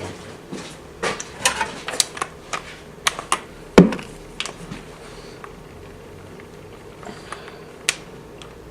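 Irregular clinks and knocks of metal tools and engine parts being handled on a workbench, with one heavier knock about four seconds in.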